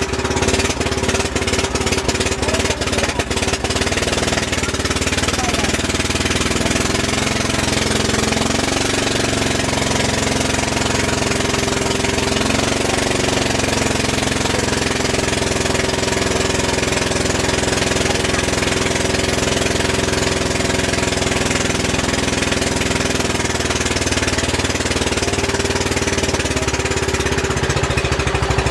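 Engine of a wooden outrigger passenger boat (bangka) running steadily, an even, loud drone heard from on board.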